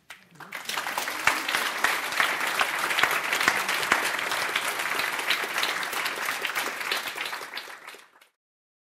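Audience applauding. The clapping builds over the first second and fades out near the end.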